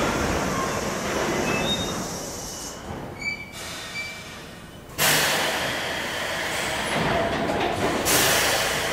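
Subway train's wheels squealing as it slows to a stop on the tight curve, fading after a few seconds. About five seconds in, a sudden loud rush of hiss and mechanical noise starts, with a second surge near the end, as the movable gap-filler platform extends toward the train doors.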